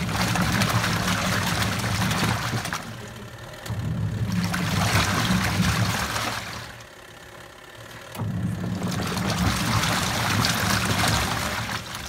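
Crafft CRB80-789ST twin-tub washing machine running: motor hum with water churning and sloshing in runs of about three seconds, dropping off briefly between runs, about three times.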